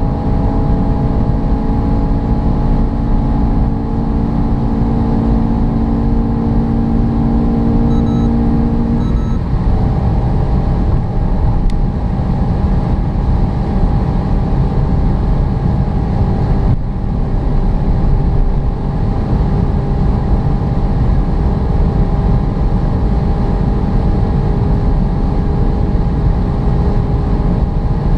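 Renault Mégane RS's 1.8-litre turbocharged four-cylinder engine at full throttle near its top speed, heard from inside the cabin over heavy wind and road noise. The engine note changes about nine seconds in.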